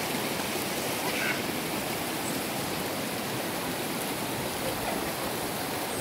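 Shallow mountain stream rushing steadily over and between boulders.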